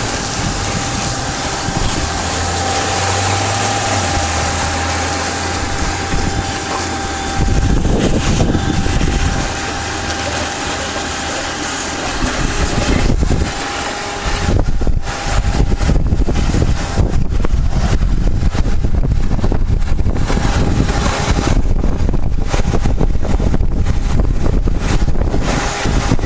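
Shop vacuum running with a steady whine, its nozzle worked over a scaled evaporative cooler pad to pull off loosened mineral deposits. From about halfway the suction noise turns louder and uneven as the wand moves against the pad.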